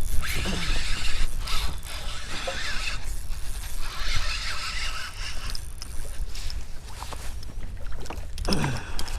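Wind rumbling on the microphone, with scattered clicks, knocks and rattles of gear being handled aboard a fishing kayak.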